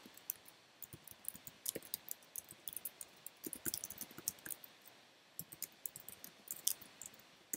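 Typing on a computer keyboard: a run of light, irregular key clicks, with a pause of about half a second a little under five seconds in.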